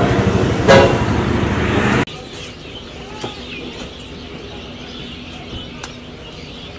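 Loud busy street noise with a short honk-like tone about a second in. It cuts off suddenly to a much quieter road-traffic hum with a few faint bird chirps.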